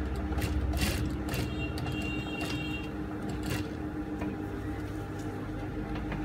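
JUKI industrial sewing machine running as it stitches through fabric guided under the presser foot: a steady mechanical hum with a few sharp clicks.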